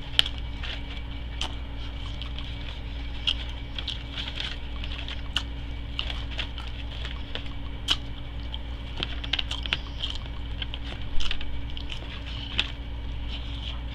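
Aluminium foil crinkling and crackling as fingers pick through a foil-wrapped sandwich, with chewing and mouth sounds, heard as scattered short clicks and crackles over a steady low hum.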